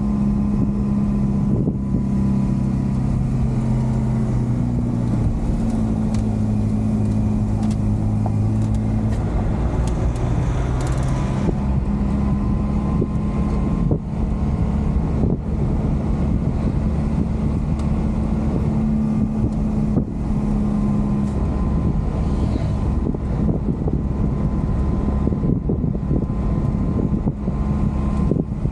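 JAC truck's engine running steadily under way, heard from inside the cab along with road rumble. The engine note shifts about ten seconds in and again around twenty seconds.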